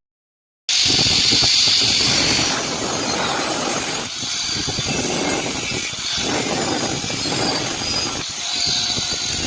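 Electric arc welding on steel pipe: a loud, steady crackling and hissing arc that starts abruptly and cuts off sharply as the arc is broken.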